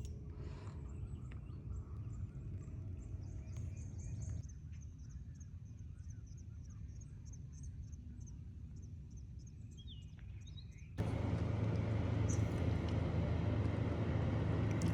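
Quiet open-air lake ambience with a faint, rapidly repeated high bird chirp, then about eleven seconds in a much louder steady motor drone with a low hum starts abruptly.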